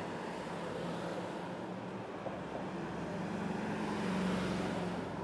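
Street traffic with a low engine hum; a vehicle passes on the road, growing louder to a peak about four seconds in and then easing off.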